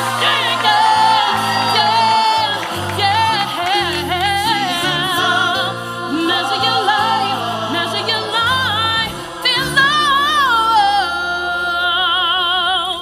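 A woman singing a high lead solo with wide vibrato and quick runs over sustained backing chords from the band and ensemble, in a live stage performance.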